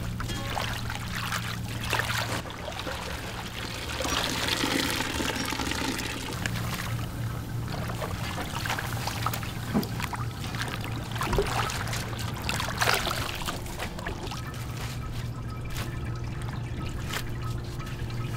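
Water pouring and trickling steadily over a constant low hum.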